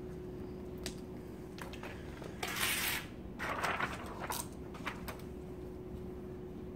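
Clicks and light clatter of an installer's hand tools and vinyl film being handled, with two brief rustling rushes near the middle, over a steady low hum.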